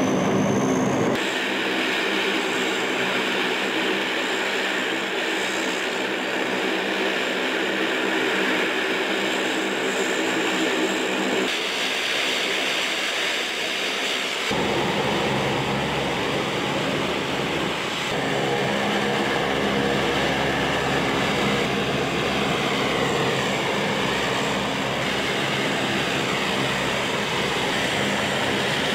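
AC-130U gunship's four Allison T56 turboprop engines running on the ground: a steady propeller drone made of several held tones, changing abruptly a few times.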